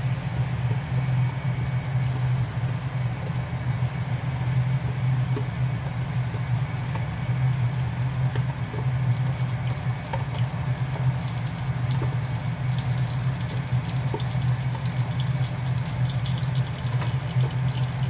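A washing machine running, a loud steady low hum with water noise. Over it, a light crackling sizzle of blended spice paste frying in oil in a wok, growing busier from about halfway.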